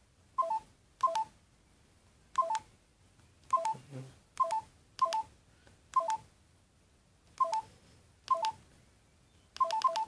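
LG GS101 mobile phone's keypad tones: a short beep with each press of the navigation key, about a dozen presses at uneven intervals as the menu is scrolled.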